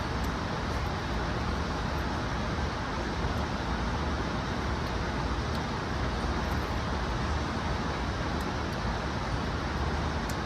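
Steady low background rumble with no gunshots, and a few faint clicks.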